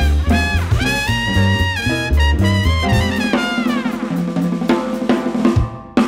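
Live jazz quartet of trumpet, piano, double bass and drums. The trumpet plays a phrase ending in a long held note that bends down and stops about three seconds in, then the rhythm section carries on.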